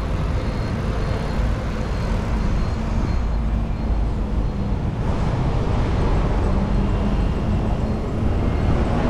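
Steady wind rush on the microphone of a camera mounted on a moving bicycle, mixed with tyre noise from the paved road.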